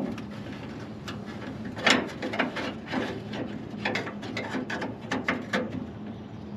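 Ratchet wrench clicking in short irregular runs while nuts are worked off a car's grille bracket, with a louder metal clack about two seconds in.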